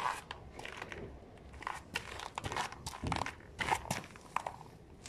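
Footsteps in rubber clogs on gritty, slushy paving stones: irregular short crunches and scuffs.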